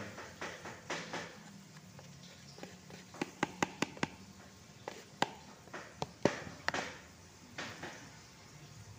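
Sharp taps and knocks from handling a plastic mixing basin with flour in it: a quick run of about six taps a little past three seconds in, then a few single knocks over the next few seconds.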